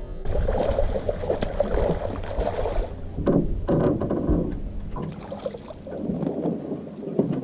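Wind buffeting the microphone and water splashing at a boat, with irregular sharp knocks and splashes, as a bass that struck a topwater frog lure is fought in.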